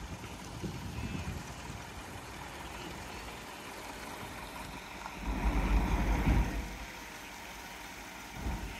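Leyland semi-trailer truck's diesel engine running at low revs as the rig reverses slowly, with a louder low rumble for about a second and a half just past the middle.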